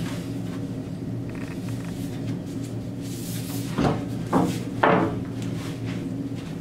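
A long white oak board knocking three times, about half a second apart, as it is handled and hoisted, over a steady low hum.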